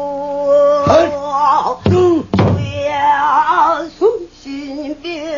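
Pansori singing: a woman's voice holding long, wavering notes with wide vibrato, accompanied by a few sharp strokes on the buk barrel drum about one and two seconds in.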